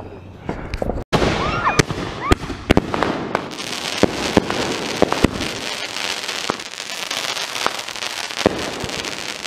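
Consumer fireworks going off: about a second in, a dense crackling sets in, with many sharp pops and bangs scattered through it.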